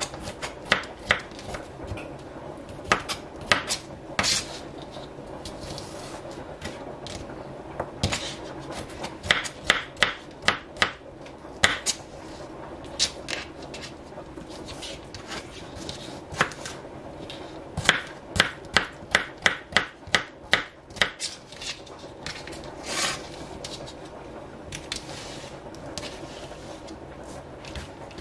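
Chef's knife chopping green bell pepper and onion on a plastic cutting mat: sharp knocks of the blade on the board, in quick runs with short pauses between them.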